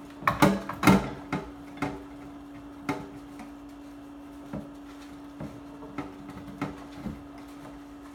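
Dishes and utensils knocking and clinking in a kitchen sink as they are washed by hand: a quick run of louder knocks in the first second, then single lighter knocks about every second. A steady hum runs underneath.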